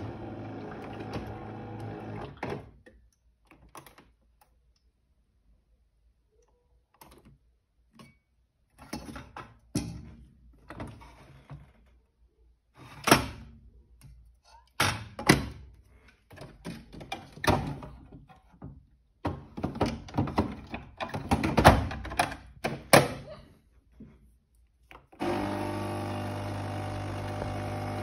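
Melitta Caffeo Solo coffee machine humming steadily, stopping about two and a half seconds in, then a long run of knocks and clunks from a metal milk jug being moved and the machine being handled; the steady hum starts again near the end.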